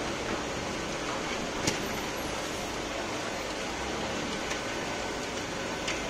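Hot stones and chestnuts scraping and rattling as they are stirred with perforated steel ladles in a big steel roasting pan, a steady gritty noise. A sharp clack of metal on metal comes about a second and a half in.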